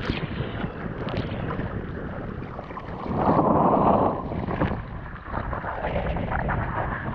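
Choppy sea water splashing and sloshing around an action camera held at the surface by a swimmer, with wind buffeting the microphone. About three seconds in there is a louder burst of splashing lasting about a second.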